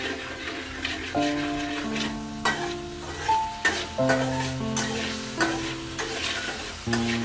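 Metal spatula scraping and knocking against a steel wok as garlic sizzles in oil, with a few sharp clanks. Background music with held notes plays along.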